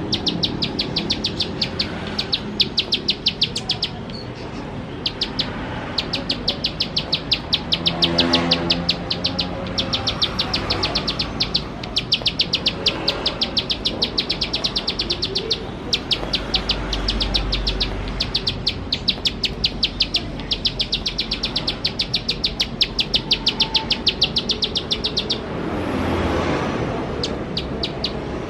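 Ciblek sawah, a field prinia, singing its rapid 'shooting' song: fast trains of sharp, high ticking notes, many per second, in runs of one to three seconds with short breaks between.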